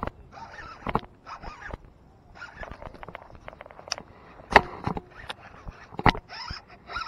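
Clicks, rattles and scratchy rustling from a baitcasting rod and reel handled close by as a lure is cast and reeled in, with sharp knocks about four and a half and six seconds in.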